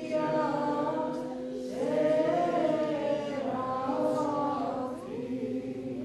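Eastern Orthodox liturgical choir singing a cappella, several voices holding long chords. A new phrase begins about two seconds in, and the singing grows softer near the end.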